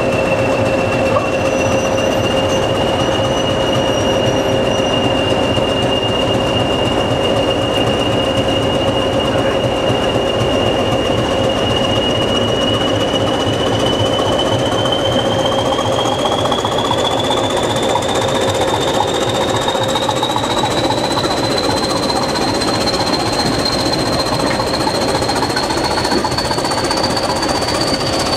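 A train running, heard from beside the carriage: a loud, steady mechanical rumble with a high whine. The whine holds its pitch for the first half, then rises steadily as the train gathers speed.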